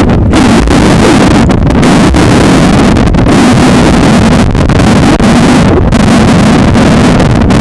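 Loud churning whitewater of a tidal rapid, heard from a camera that is being washed under and through the water. The sound is a heavy, steady rush, with a few brief dips in its hiss.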